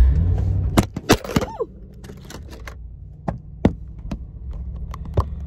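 A few sharp taps and knocks, one cluster about a second in and then single ones every second or so, inside a car cabin over a steady low rumble.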